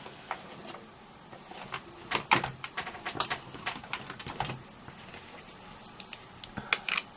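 Scattered light clicks and taps of small craft supplies being picked up and set down on a work surface, with a small cluster about two seconds in and another near the end.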